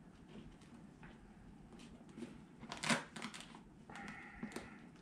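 Faint handling noises of a soft motorcycle bag and its mounting hardware: rustling fabric with scattered light clicks and taps, and one sharper knock about three seconds in.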